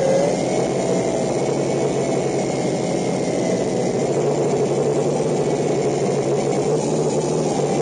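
JJRC Tarantula X6 quadcopter's motors and propellers buzzing steadily, heard close up from the camera mounted on the drone. The pitch dips briefly at the start and wanders slightly with throttle.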